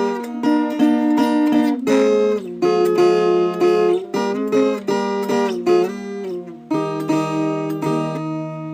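Viola caipira, the Brazilian ten-string folk guitar, plucked and strummed in a run of ringing chords, with the melody moving to a new note every second or so.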